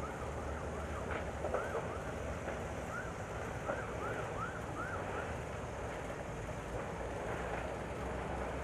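Faint emergency siren on a fast yelp, its rapid up-and-down sweeps repeating through the first five seconds or so. Underneath is a steady low rumble and wind noise, and a few sharp pops come through.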